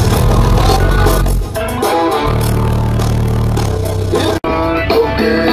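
A car audio system playing music loud, its 15-inch SP Audio subwoofer putting out long, deep bass notes under guitar-led music. The sound cuts out for an instant about four seconds in.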